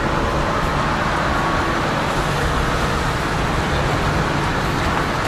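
Steady noise of a motor vehicle driving slowly on a wet road, engine and tyres running evenly.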